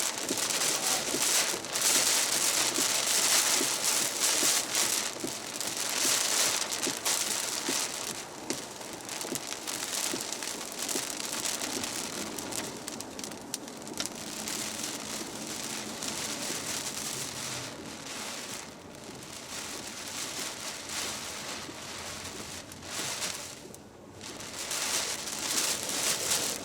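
Heavy thunderstorm rain pelting down as a dense, steady hiss. It is heaviest for the first several seconds, then eases a little and swells and fades, with two short lulls in the second half.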